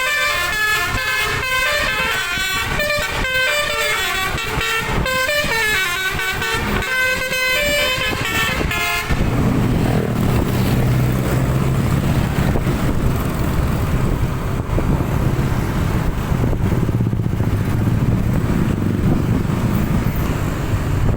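A bus's telolet musical horn, its several trumpets playing a melody of stepping notes for about nine seconds. Then the horn stops and the bus's engine rumbles steadily under road noise.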